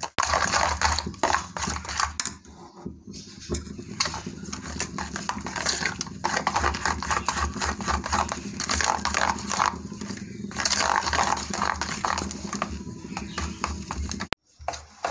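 A hand stirring and squishing thick wheat-flour and buttermilk batter in a steel bowl: continuous wet squelching and rubbing strokes, pausing briefly about two seconds in and again near the end.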